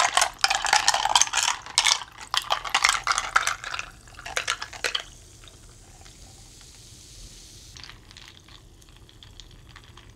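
Sprite poured from a paper cup into a mug, fizzing and crackling for about five seconds. After that the carbonation hisses faintly as it settles, and the hiss fades out near the end.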